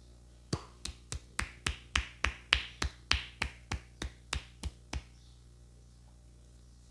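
A barber's hands slapping rhythmically on a customer's head in the percussive finish of a champi massage: about sixteen quick strikes, roughly three or four a second, loudest in the middle, stopping about five seconds in.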